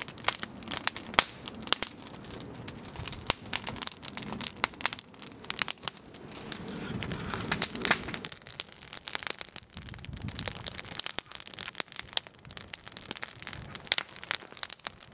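Wood campfire crackling, with frequent sharp, irregular pops as the flames burn through split wood and kindling.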